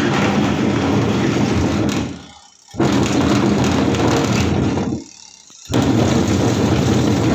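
Whirlpool semi-automatic washing machine's wash motor and gearbox running loudly in three runs of about two seconds each, with short pauses between, as the wash action stops and starts. The noise is the sign of a faulty gearbox.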